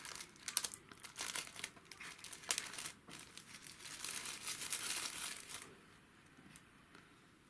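Clear plastic bag crinkling as hands unwrap a charging cable from it. The crinkling comes in irregular bursts and stops a little before six seconds in.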